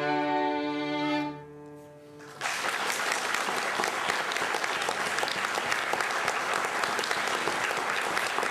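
A folk band of two violins and cimbalom ends a dance tune on a held final chord that fades out about two seconds in. An audience then breaks into steady applause for the rest of the time.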